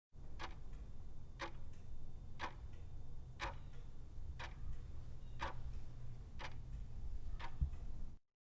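Clock ticking once a second, eight ticks, over a low steady hum.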